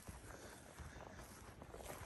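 Faint footsteps on grass, soft and irregular, while walking.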